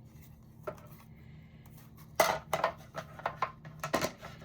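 Die-cutting cutting plates and a metal die clacking together as they are handled and stacked for a small die-cutting machine: one light click, then from about two seconds in a quick cluster of sharp clacks and taps, the first the loudest.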